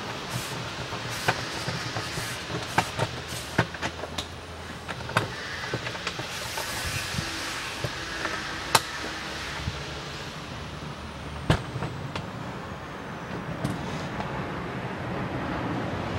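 Two-post car lift lowering the car: a steady low motor hum with scattered sharp clicks and metallic knocks.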